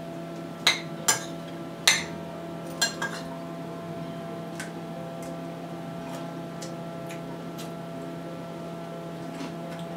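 Metal spoon clinking and tapping against a ceramic bowl, five sharp clicks in the first three seconds and a few faint ticks later, as ice cream is scooped onto bread pudding. A steady appliance hum runs underneath.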